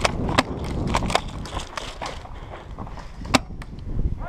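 Footsteps crunching on dry dirt as a player runs, with a low rumble of wind and handling on the helmet camera. Over them, a run of sharp cracks from airsoft gunfire, the loudest about three seconds in.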